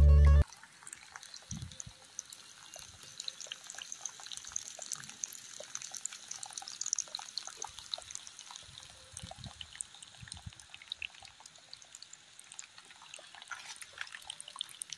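Stream of water from a small homemade pump's outlet tube pouring and splashing into a shallow muddy channel: an uneven patter of splashes and trickling. The pump's motor is not heard over it.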